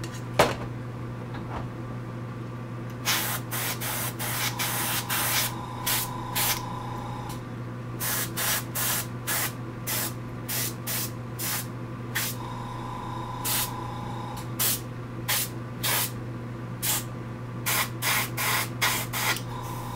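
Airbrush spraying paint onto a plastic model in many short hissing bursts, about one to two a second from about three seconds in, over a steady low hum.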